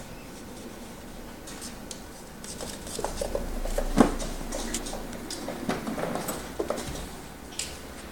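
A kitten's paws and claws pattering and skittering on a hard smooth floor as it plays and dashes about, in a run of light quick taps with one sharper knock about halfway through.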